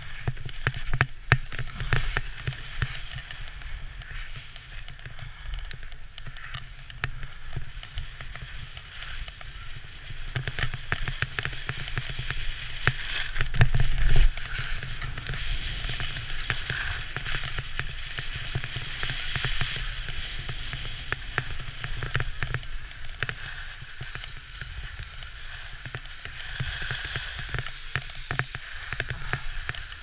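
Skis or snowboard edges scraping and hissing over the snow during a downhill run, with wind rumbling on the microphone. The scrape swells to its loudest about halfway through.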